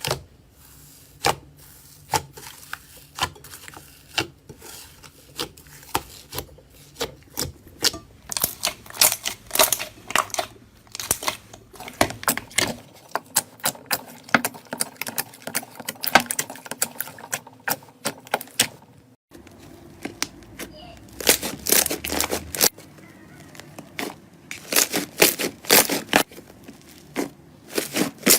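Slime being squeezed and worked by hand, giving rapid, irregular crisp pops and crackles, in a few short clips with cuts about 13 and 19 seconds in.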